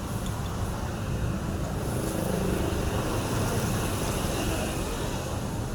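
Two-stroke chainsaw engine running steadily, getting a little louder through the middle.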